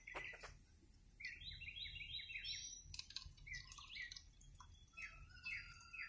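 Songbirds chirping in quick series of short, falling notes, with a thin steady whistle joining about five seconds in. A few light clicks at the very start.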